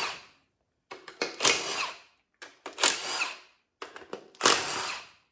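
Impact gun spinning out transmission case bolts in three short bursts of about a second each, with a faint rising whine in each burst.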